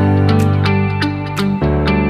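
Background music with guitar over a steady bass line and a regular beat.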